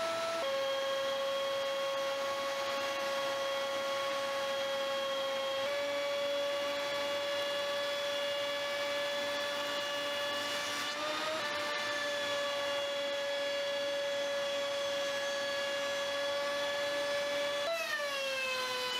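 Laguna PX12 portable planer running and cutting, its motor and carbide-insert cutterhead giving a steady high whine. The pitch sags slightly about half a second in as a board is taken under load, shifts a little around 6 and 11 seconds, and near the end jumps briefly before settling lower again.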